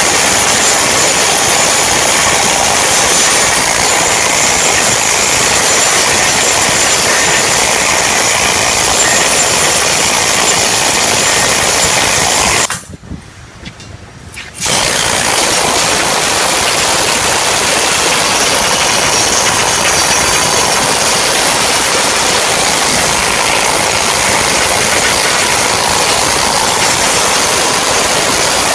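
Flux-cored arc welding on stainless steel: the arc's steady crackle and hiss. It breaks off for about two seconds midway, then strikes again and carries on.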